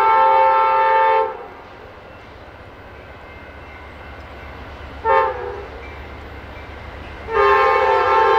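Amtrak diesel passenger locomotive approaching and sounding its multi-note air horn: a long blast that ends about a second in, a short toot around five seconds, and another long blast starting near the end, the long-long-short-long pattern used at grade crossings. The low rumble of the locomotive builds underneath.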